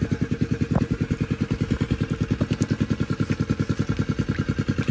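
A small engine running steadily at an even chugging rhythm of about ten beats a second.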